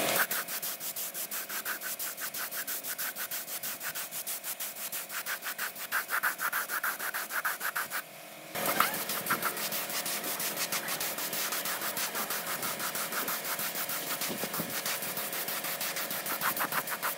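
Rapid back-and-forth abrasive rubbing strokes, several a second, as in hand sanding a workpiece, with a short break about eight seconds in.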